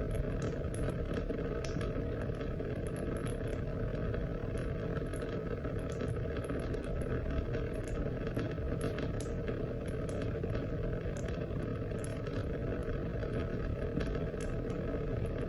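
Steady rain: a continuous low rush with many small, irregular drop ticks scattered through it.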